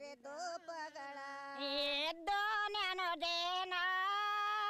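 A woman singing a Kannada folk song, holding long drawn-out notes, with a short break about two seconds in.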